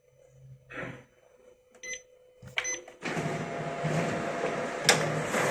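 Ricoh MP C6003 copier: two short control-panel beeps, then about three seconds in the machine starts up and runs with a steady whirr, with sharp clicks, as it prints the counter page. It is running normally now that the paper jam in tray 3 behind error SC503-11 has been cleared.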